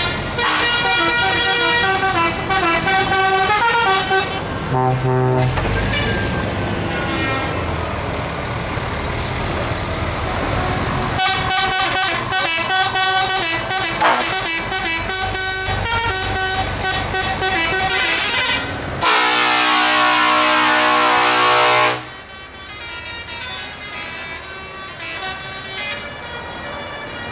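Convoy of semi-truck tractor units driving past, their drivers sounding air horns again and again in several tones over the engines' running. About two-thirds of the way in, one loud, steady horn blast holds for about three seconds and cuts off suddenly.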